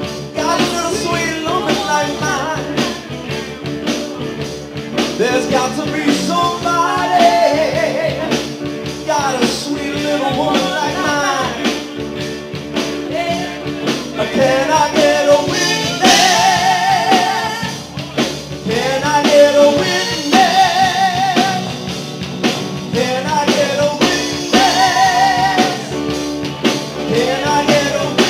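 Live rock and roll band playing in full: electric guitars, bass, drums and keyboard, with a wavering lead melody sung or played into the front microphone over the top.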